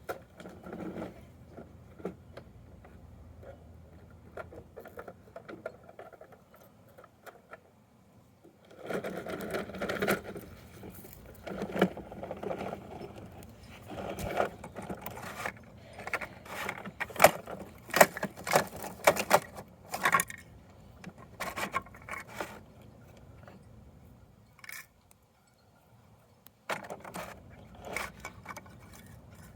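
Irregular plastic clicking, rattling and scraping from a Bruder toy garbage truck and its bins being handled and worked. The sound starts about nine seconds in, is busiest in the middle, pauses briefly and picks up again near the end.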